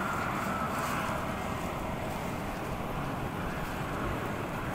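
Steady wind noise on the microphone, an even rushing with no distinct events.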